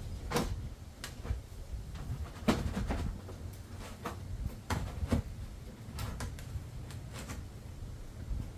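Plastic interior trim panel being handled and worked into place, giving a dozen or so irregular knocks and clicks.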